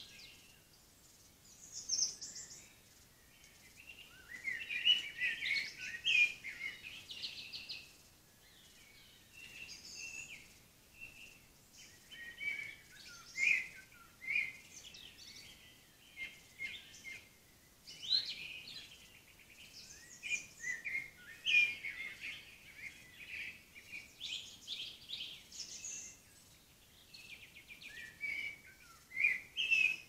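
Woodland songbirds singing: short, varied, high-pitched phrases follow one another all through, over a faint steady hiss.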